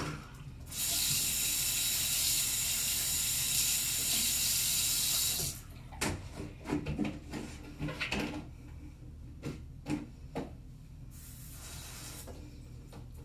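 Bathwater poured out of a bucket, an even rush of water for about five seconds, followed by a run of knocks and clatters as the bucket is handled, then a short, weaker pour near the end.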